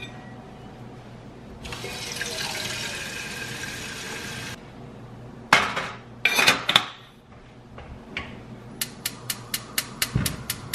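Tap water runs into a stainless-steel kettle for about three seconds. Then come a few metal clanks as the kettle is handled and set on the stove. Near the end a gas range's igniter clicks rapidly, about six clicks a second, with a soft low thump as the burner catches.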